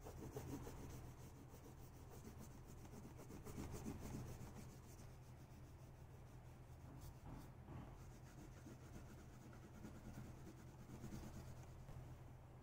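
Faint rubbing of an oil pastel stroked back and forth on drawing paper, colouring in stripes, over a steady low hum.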